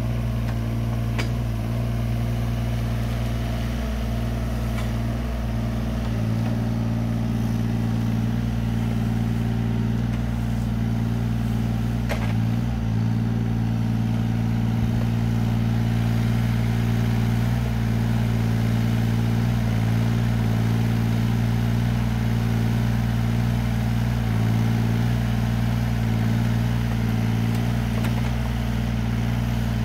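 Yanmar ViO17 mini excavator's three-cylinder diesel engine running steadily, with a few faint clicks.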